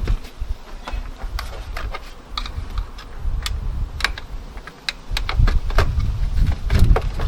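Scattered light clicks and taps of plastic trim panels and clips being handled in an engine bay, with a low rumble coming in about five seconds in.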